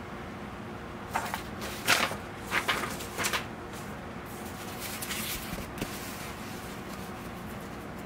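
Paper instruction leaflet crackling and crinkling as it is handled and put aside, a quick cluster of sharp crinkles lasting about two seconds. Then softer, fainter rustling as the foam kneeling pad is handled.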